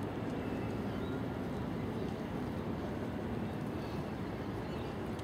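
Steady low rumbling background noise of an open-air arena.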